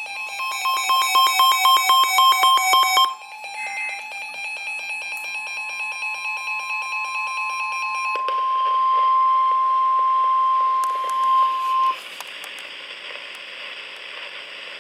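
Emergency weather alert tones over radio: a rapidly pulsing multi-tone electronic alarm for about three seconds, then a single steady high tone, the weather radio warning alarm tone. The steady tone cuts off sharply near the end, leaving radio static hiss.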